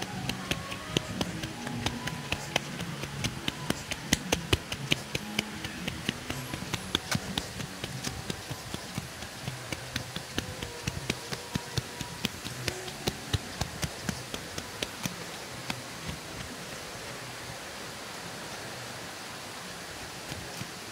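Irregular sharp clicks or taps, several a second, over a steady rushing noise. The clicks thin out and stop about three-quarters of the way through, leaving only the rushing.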